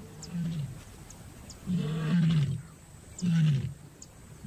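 Lioness in heat calling to attract males: three low moaning calls, each falling away at the end, the middle one the longest and loudest.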